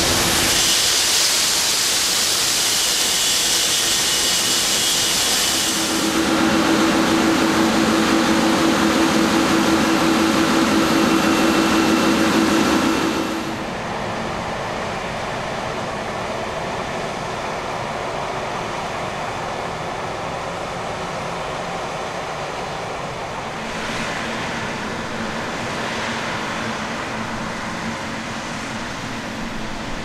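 Large farm harvest machinery running steadily. A loud rushing hiss gives way about six seconds in to a louder steady drone with a low hum, which drops to a quieter drone about halfway through.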